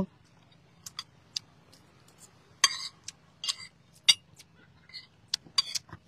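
Metal fork and spoon clinking and scraping on a ceramic plate while eating: scattered sharp clicks and a few short scrapes.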